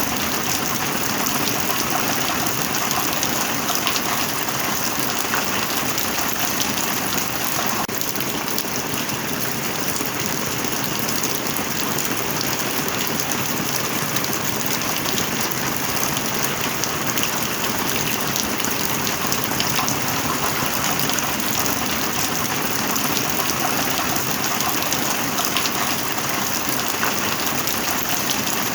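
Heavy rain falling steadily, a dense, even patter of countless drops with no let-up.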